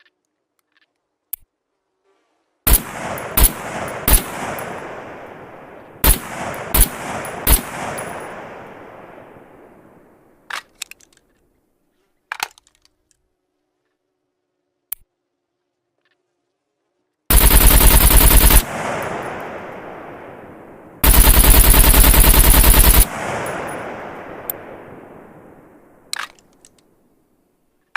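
AKM assault rifle firing two strings of three single shots, each shot about 0.7 s apart with a long echoing tail. A few faint clicks follow, then two full-auto bursts, the second longer, each trailing off in echo.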